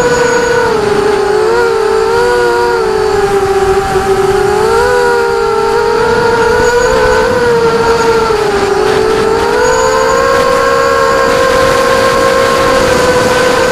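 Small multirotor drone's motors and propellers whining, several close pitches together that sag and rise smoothly as the throttle changes, dipping about a second in and again past the middle, then climbing higher near the end.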